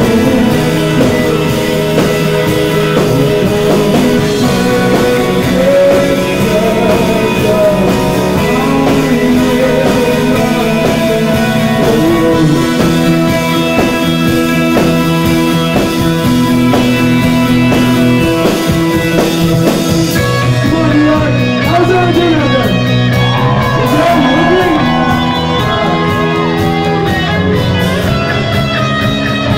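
A rock band playing: electric guitars and drums, with a singer's voice over them.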